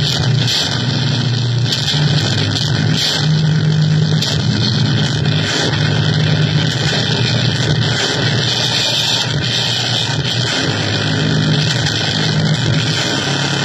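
Harsh electronic noise music from keyboard noise: a dense hiss over a low droning tone that shifts to a new pitch every second or two.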